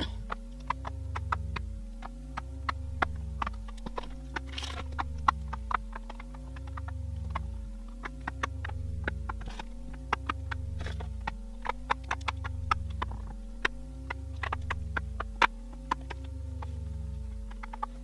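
Background music with a slow, pulsing bass and a wavering tone that repeats about every second and a half. Over it come many quick, irregular clicks, small round magnets being set down one after another on a metal sheet.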